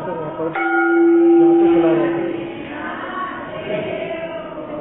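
A temple bell struck once about half a second in, its clear ringing tone fading over about two seconds, over a murmur of voices.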